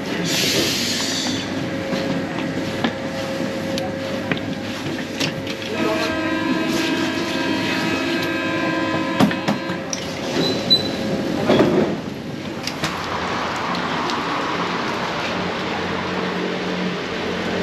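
Paris Métro train running, with a steady rumble and rattle. About six seconds in, a steady whine of several tones sets in for about four seconds, followed by a few sharp knocks.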